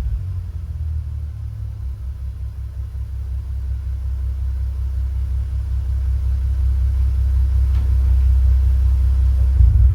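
Exhaust of an Audi A3 3.2's VR6 engine giving a steady deep rumble at low, even revs, slowly growing louder, then cutting off abruptly at the very end.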